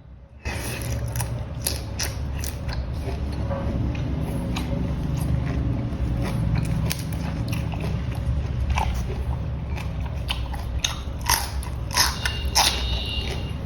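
Close-miked mukbang eating: biting and chewing shrimp in Thai-style sauce, full of sharp wet clicks and crackles over a low rumble, starting about half a second in.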